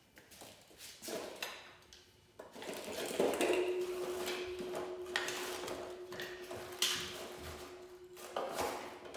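Clanks and knocks of metal parts being handled, then an angle grinder running with a steady hum for about five seconds before it stops.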